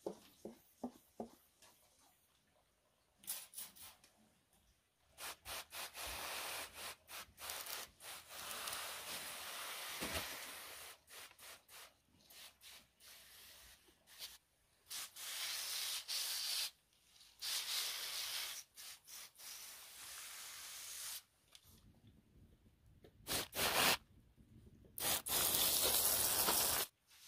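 Hand-pump pressure sprayer: a few quick clicks of the pump near the start, then repeated bursts of hissing spray as water is squirted onto potted plants. The bursts last from under a second to a few seconds each, and the loudest comes near the end.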